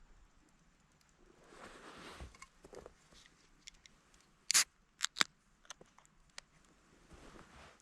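Footsteps crunching in snow, with a cluster of three loud, sharp cracks about halfway through.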